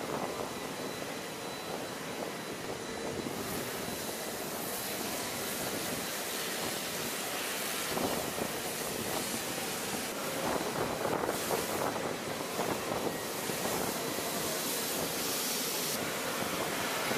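Steady hiss of water spraying from a robotic aircraft-wash arm's nozzle onto an F-16. It grows louder and harsher after a few seconds and again from about the middle, changing abruptly as if between shots.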